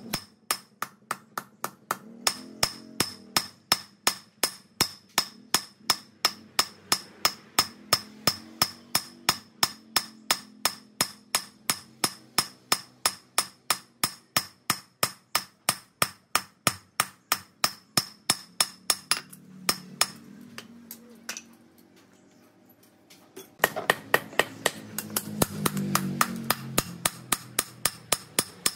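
Hammer blows on hot steel on an anvil, hand forging a knife blank, in a steady rhythm of about three strikes a second, each leaving a bright metallic ring. The blows thin out for a few seconds past the middle, then come back quickly and densely near the end.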